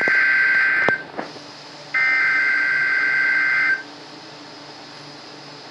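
NOAA Weather Radio receiver sounding the SAME digital header of a Required Weekly Test: two bursts of shrill two-tone data warbling, the first about a second long and the second nearly two seconds, with faint radio hiss and hum between them.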